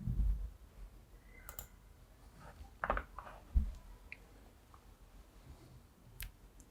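A few scattered sharp clicks and soft low knocks on a desk, typical of a computer mouse being clicked while nodes are placed in an editor.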